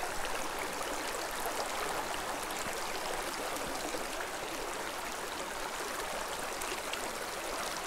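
Shallow mountain creek running over cobbles and rocks: a steady babble of water.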